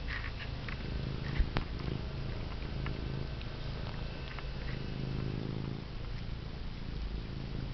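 Orange cat purring steadily right against the microphone, with a sharp tap about a second and a half in.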